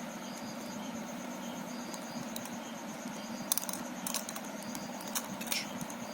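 Plastic Rubik's cube pieces clicking and clattering as they are handled, in a cluster of sharp clicks from about three and a half to five and a half seconds in. A fast, steady, high-pitched pulsing runs underneath.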